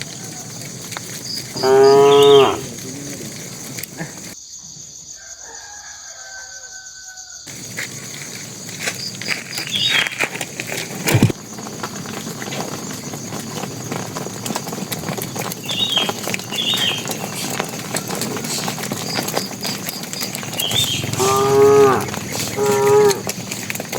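Cattle mooing: one loud, full moo about two seconds in, then two shorter moos close together near the end. Short high bird chirps come now and then in between.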